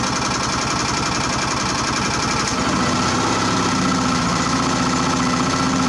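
Small 7-horsepower generator engine running on wood gas, cold and starved by a slow gas flow, struggling to keep running. About two and a half seconds in its note steadies and grows slightly louder as the air mixture is adjusted.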